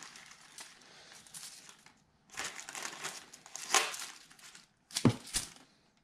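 Plastic poly mailer and bubble wrap crinkling and rustling as bubble-wrapped figurines are pushed into the mailer, with two short knocks near the end.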